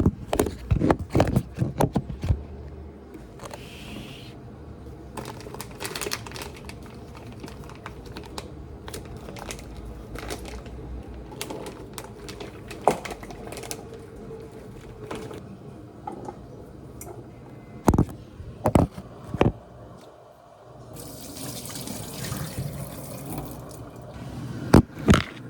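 Water pouring in a kitchen, with knocks and clinks of cookware and utensils: a cluster of them at the start and a few more later.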